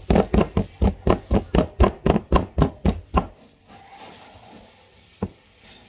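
A metal spoon stabbing and scraping at a frozen-hard purple mixture in a bowl, about four sharp strikes a second, stopping about three seconds in. One more single knock comes near the end.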